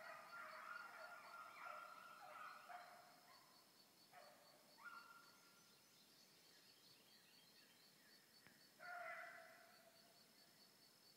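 A pack of hounds baying on a rabbit's trail, faint and distant. Several voices overlap at first, then single bays come about four and five seconds in, and a louder one near nine seconds.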